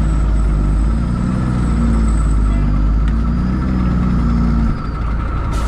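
2003 Pierce Dash fire truck's diesel engine running steadily.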